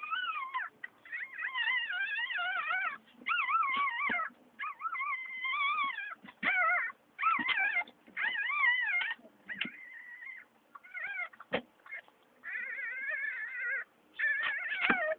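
Newborn puppies crying: a long run of high, wavering squeals with short breaks between them, and a few sharp knocks in among them.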